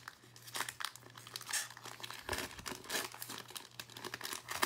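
Wrapper of a basketball trading card pack crinkling as it is torn open by hand: a run of irregular crackles.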